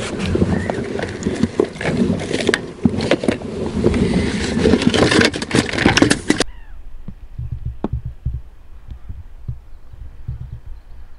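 Close handling noise of gear in an inflatable boat: rustling with many sharp clicks and knocks near the microphone. About six and a half seconds in it cuts off abruptly to quieter low thumps.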